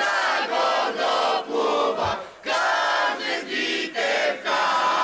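A crowd of supporters chanting and shouting together in unison, in short bursts with brief breaks between them.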